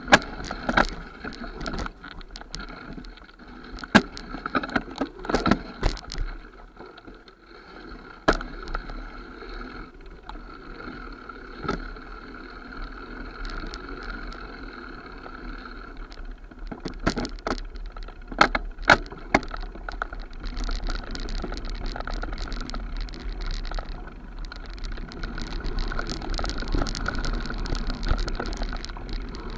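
Mountain bike descending a dirt forest trail: tyres rolling on the dirt with sharp clatters and knocks from the bike over bumps and roots. The rolling hiss grows louder about two-thirds of the way in.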